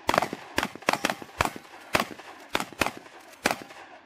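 Two shotguns firing a fast, uneven string of overlapping shots, about a dozen in four seconds, as two shooters race each other.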